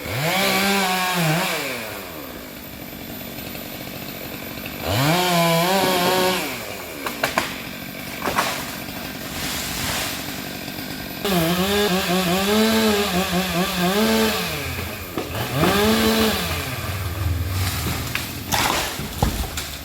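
Two-stroke Stihl MS 462 chainsaw pruning a sengon tree: revved up to high speed in about four bursts of one to three seconds each, dropping back to idle between them.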